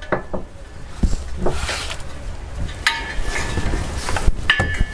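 Metal clinks and scrapes as a screwdriver and the exhaust pipe are worked to seat the exhaust hanger rod into its rubber hanger. Several sharp clinks are spread out, a couple of them with a brief metallic ring.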